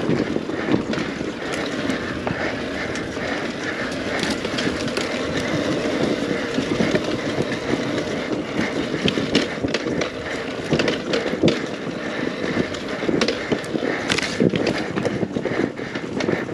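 Beta 300 RR two-stroke enduro bike running over rough ground, with continual knocks and clatters from the bike and terrain.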